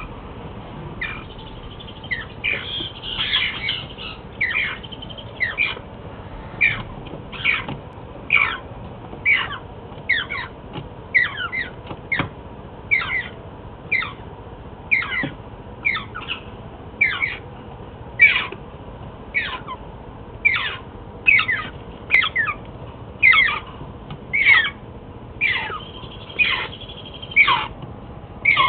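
Hand-reared parrot chicks squawking over and over: short, harsh calls about one a second, each dropping quickly in pitch.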